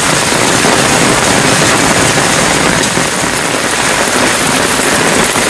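Heavy rain pouring down on waterlogged ground and paving, a loud, steady, even hiss.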